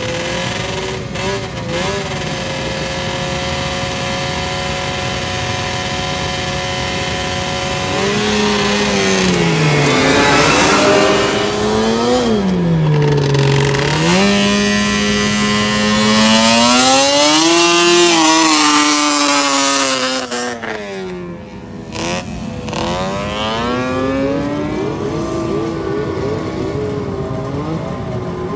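Racing ATV engine held at steady revs on the start line, then launching down a dirt drag strip about 8 seconds in, its pitch climbing in steps with brief drops before falling away as it passes into the distance. Near the end an engine revs up again.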